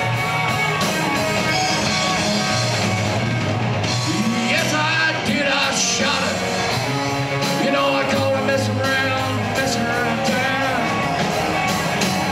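Live rock band playing: electric guitar over bass guitar and a drum kit.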